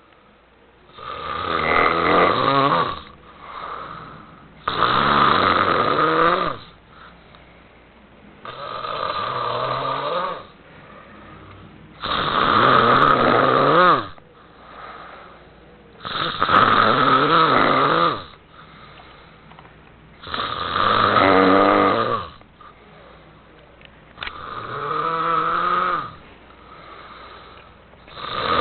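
A man snoring in his sleep: a long, loud snore about every four seconds, with fainter breaths in between.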